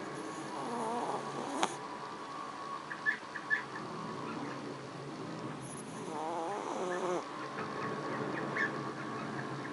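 Chihuahua snoring in its sleep: two long, wavering snores, one about half a second in and another around six seconds in, over a steady faint hum, with a few short clicks between them.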